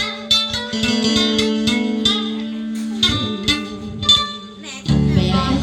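Instrumental song introduction: a plucked guitar melody with quick repeated notes. A low held chord joins near the end.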